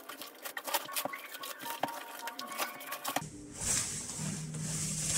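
Plastic wrapping crinkling and crackling as it is pulled off a projector, a quick run of small crackles; about three seconds in it changes abruptly to softer rustling over a low hum.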